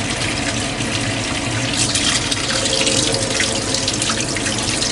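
Water running from a tap into a sink, splashing more strongly from about two seconds in.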